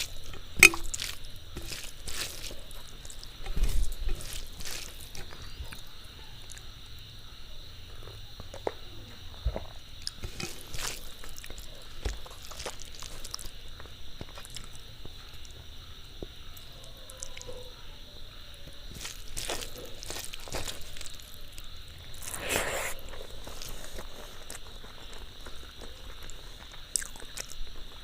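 Close-miked eating sounds of a person eating a rice meal: chewing, wet mouth and lip smacks, and scattered small clicks, with a louder rustling smear about three-quarters of the way through.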